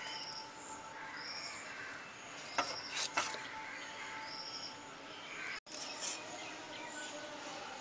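Small birds chirping outdoors in short high calls repeating about once a second, over a faint steady hum. Between about two and a half and three seconds in come a few sharp knocks as pieces of mutton are cut against a fixed curved kitchen blade. The sound cuts out for an instant just past five seconds.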